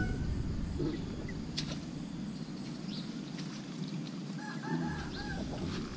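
Chickens clucking and crowing over a steady outdoor background hiss, with a longer call about four and a half seconds in and one sharp click about a second and a half in.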